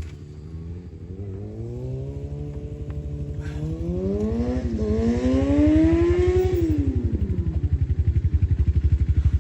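Supermoto motorcycle engine accelerating: the revs climb steadily for several seconds, dip briefly about halfway through as a gear change, climb again, then fall away and settle to a low, even pulsing run.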